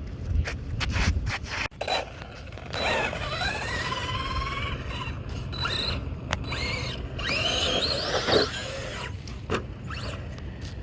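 Arrma Big Rock V3's brushless motor whining as it revs up and down, with scattered sharp clicks and knocks from the truck running over the dirt.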